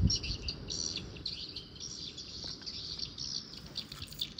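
Many small birds chirping at once, a steady chorus of rapid, high-pitched chirps.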